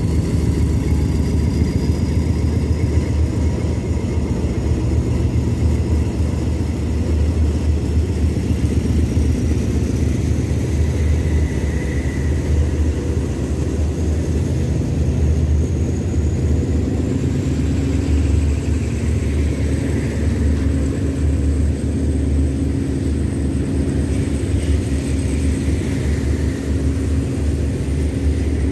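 Passenger train rolling past the platform: a steady, loud low rumble with a faint high whine that slowly rises in pitch.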